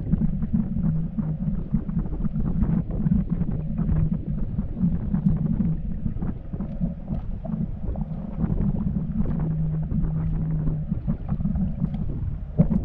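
Small boat's motor running with a steady low hum, under wind buffeting the microphone with irregular crackles.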